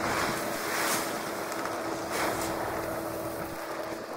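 Treated maize seed pouring from a sack into a corn planter's seed hopper: a steady rushing hiss of kernels sliding in, swelling twice.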